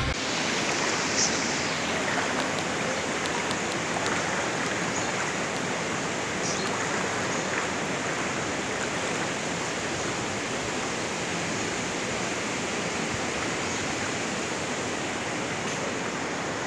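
Floodwater flowing with a steady rush.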